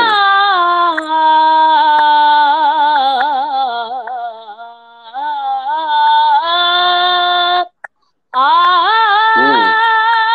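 A boy's solo voice singing a naat unaccompanied, holding long ornamented notes, with a short break for breath about eight seconds in.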